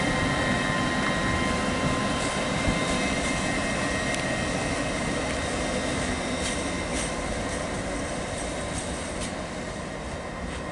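LNER Class 801 Azuma train running through the station: steady rumbling running noise with a steady high whine over it, slowly fading.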